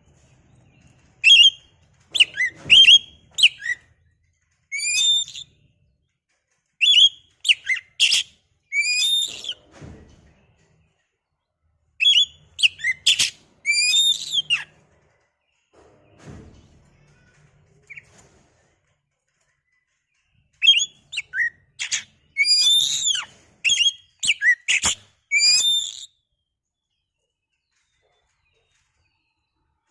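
Oriental magpie-robin (kacer) singing: loud phrases of sharp, sliding whistles and chirps, broken by pauses of a second or more, used as a lure song to rouse another kacer into singing.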